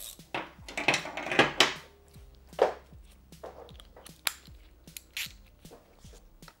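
Irregular clinks and rattles of a metal hand tool and handling noises as a headlight mounting fastener on a motorcycle is snugged up.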